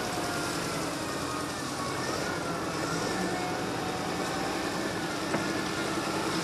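SDLG wheel loader's diesel engine running steadily as the machine drives past, with a faint whine over it that wavers gently in pitch.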